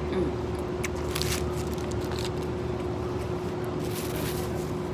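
Steady low machine hum with one constant mid-pitched tone, like an idling engine or ventilation fan, with a few short soft clicks and rustles about a second in, around two seconds and near four seconds.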